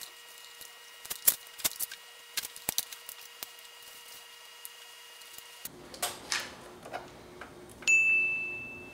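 Scattered light clicks and taps of multimeter probes touching battery-module terminals. Near the end comes a single bright ding sound effect that rings and fades over about a second.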